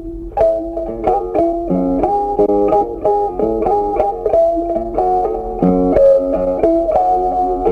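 Background music: a plucked string instrument playing a quick melody of single notes over a bass line.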